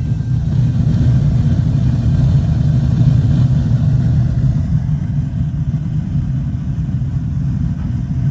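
Gas water heater's main burner firing, a steady low roar of the flame.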